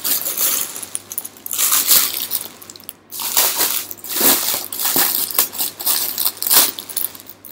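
Parcel packaging rustling and crinkling in irregular bursts as it is unwrapped by hand, with a brief pause about three seconds in.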